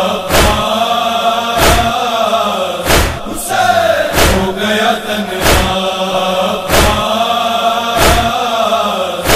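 Men chanting a noha (Urdu lament) in unison, with a heavy, even beat about every second and a quarter that keeps time with the chant, the rhythm of matam (chest-beating).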